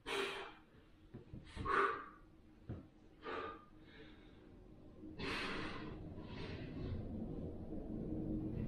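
A man breathing out hard in short bursts, about every second and a half, as he presses a pair of dumbbells up from the floor.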